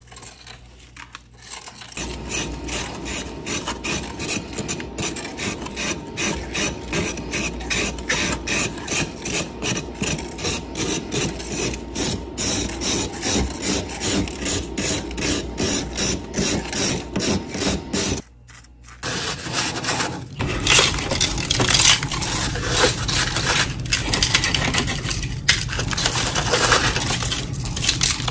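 Frost being scraped off the inside of a freezer in quick, rhythmic rasping strokes. After a short pause about two-thirds through, it gives way to a denser crunching rustle as handfuls of loose freezer frost are worked over clear hollow ring ice.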